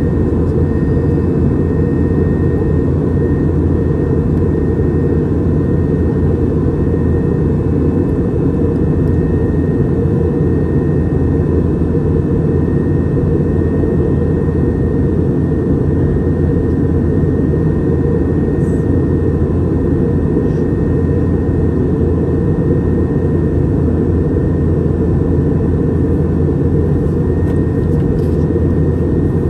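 Airliner engine and air noise heard inside the passenger cabin: a loud, steady low rumble with a faint steady whine above it.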